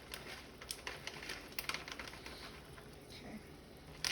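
Soft scattered clicks and light patter of cooking at the stove while a cream-cheese sauce is being put together.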